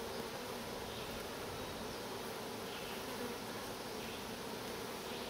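Many honey bees buzzing steadily around open nuc hive boxes: a constant, even hum.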